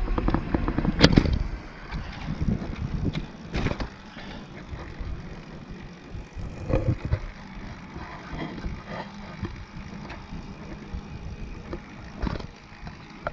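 Recumbent bicycle riding noise: wind on the microphone and tyres rolling on the trail, loud for the first couple of seconds, then quieter with scattered light clicks.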